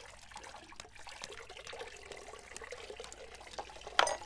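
Water trickling and splashing steadily from a small garden fountain. About four seconds in there is one short, loud clack.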